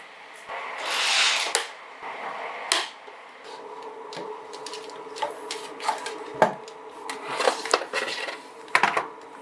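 Hard plastic parts of a robot vacuum and its dock being handled. A rustle comes about a second in, then a run of separate clicks and knocks, with a faint steady hum under the second half.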